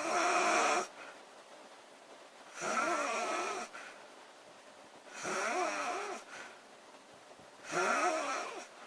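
A girl snoring loudly: four rattling, wavering snores about every two and a half seconds, each about a second long, with quiet breathing in between.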